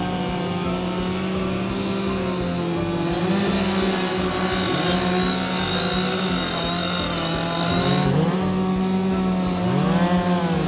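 Two-stroke chainsaw running at high revs, its pitch sagging and recovering a few times as it is loaded in the cut, with a quick rev near the end.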